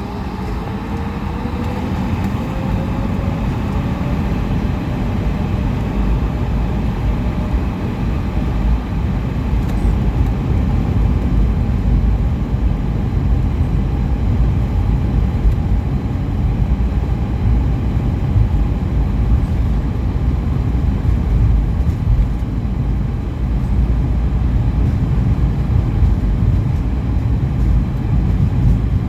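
Airbus A220-100's Pratt & Whitney PW1500G geared turbofan engines spooling up for takeoff: a whine rising in pitch over the first few seconds, then a steady jet rumble that grows louder.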